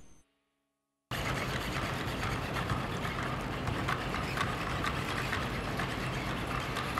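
A steady mechanical hum with light, irregular clicking from a NAO humanoid robot walking across a carpeted robot soccer field, its joint motors and feet working. It starts about a second in, after the last of a music track fades out and a short gap of silence.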